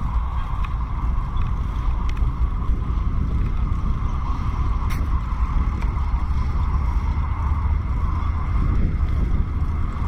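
Wind buffeting the microphone of a camera on a moving bicycle, a steady heavy rumble, over the rolling noise of the ride, with a couple of light clicks.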